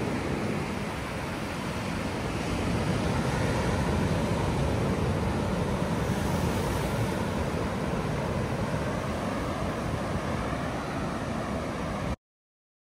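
Ocean surf with wind on the microphone, a steady noise heaviest in the low end, cutting off suddenly near the end.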